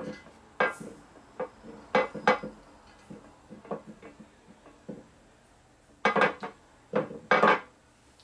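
Aluminium inner primary casting clanking against a steel workbench as it is handled and shifted: a string of separate metallic knocks, each with a short ring, the loudest few coming close together near the end.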